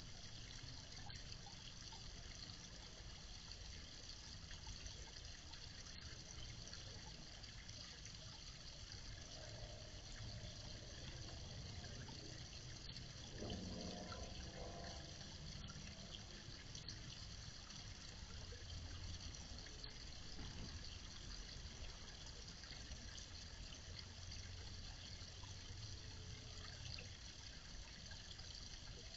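Small garden-pond waterfall trickling and splashing steadily over rocks. A short pitched sound rises over it about halfway through.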